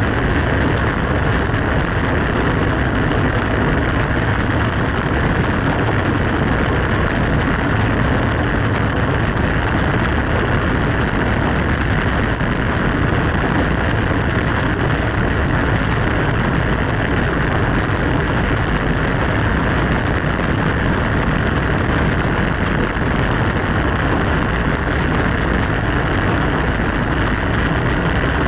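Steady rush of wind buffeting the microphone of a camera riding on a racing bicycle at speed, an even, unbroken noise with no let-up.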